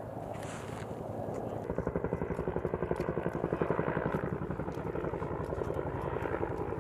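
An engine running with a fast, even pulse, which grows louder about two seconds in and stays strong to the end.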